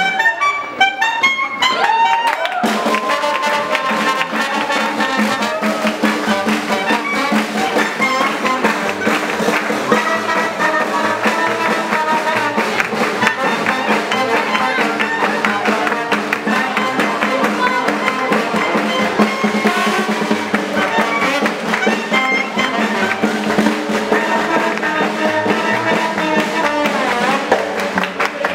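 Small hot-jazz swing combo playing an up-tempo number: clarinet and trombone over banjo, double bass and a drum kit keeping a steady beat.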